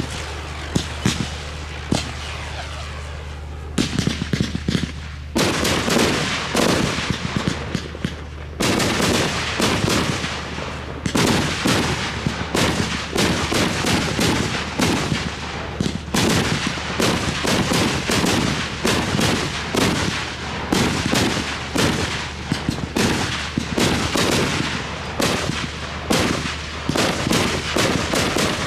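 Fireworks display: a few scattered bangs, then from about four seconds in a dense, rapid barrage of reports that keeps going, with a brief thinning about eight seconds in.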